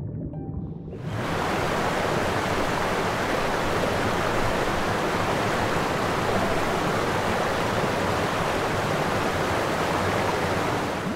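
Steady rushing of water, an even hiss with no pitch that comes in about a second in and holds level.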